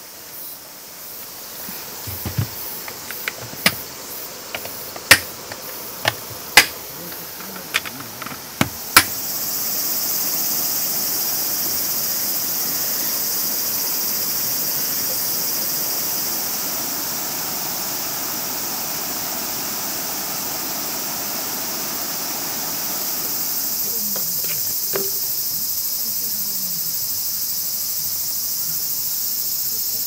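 A series of about eight sharp knocks or clacks over the first nine seconds, the loudest sounds here. Then a steady, dense, high-pitched chorus of crickets sets in and carries on.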